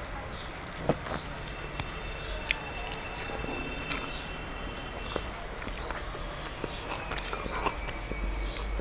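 Fingers mixing rice and fish curry on a steel plate with soft squishing, with a few sharp clicks as the fingers strike the metal, along with chewing.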